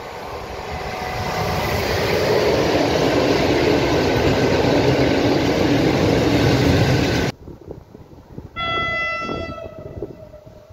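Freight train of cement hopper wagons behind a Newag Dragon (E6ACTab) electric locomotive rolling past close by. The wheel-on-rail noise builds over the first two seconds, then cuts off abruptly. About a second later a train horn sounds once, one steady note lasting about a second, from an ET22 electric locomotive approaching in the distance.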